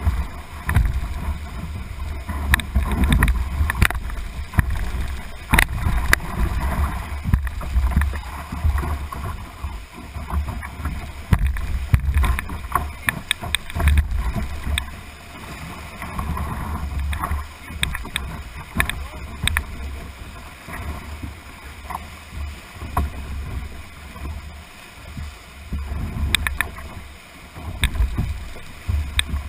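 Whitewater rapid rushing past and splashing against a canoe's hull, heard from a camera on its deck. Through it come irregular sharp knocks and splashes, over a low rumbling buffet on the microphone.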